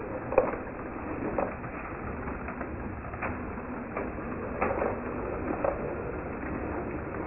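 Model railway train running on the track: a steady rumble from the locomotive and coaches, with irregular clicks, about seven, as it goes.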